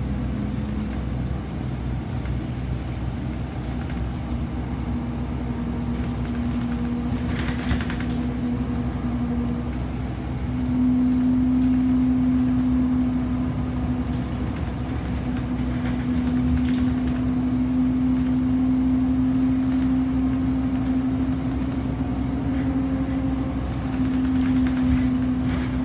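City bus heard from inside the passenger cabin while driving: a steady engine and drivetrain drone with a whine that climbs a little in pitch and grows louder about ten seconds in. A brief hiss comes a little before that, near eight seconds.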